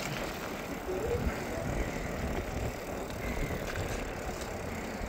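Mountain bike rolling downhill: a steady noise of tyres on the road surface and wind on the microphone.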